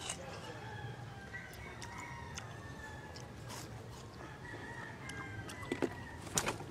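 A rooster crowing, with a few sharp clicks of watermelon being bitten and chewed near the end.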